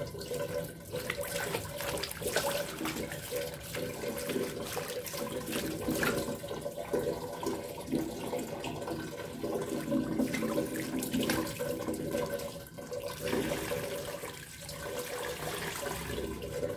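Water running from a garden hose into a plastic basin full of artificial flowers, splashing as it rinses them.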